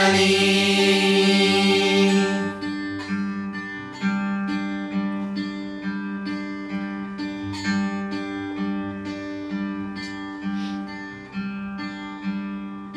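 Acoustic guitar playing an instrumental interlude in a worship song: evenly picked notes, about two a second, slowly getting softer. A held sung note fades out about two seconds in.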